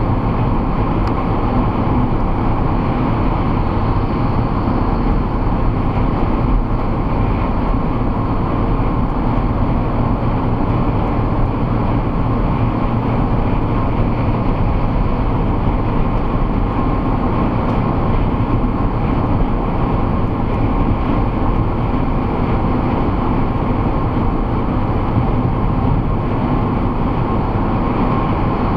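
Steady road and engine noise inside a car cruising at motorway speed, picked up by a dashcam's built-in microphone.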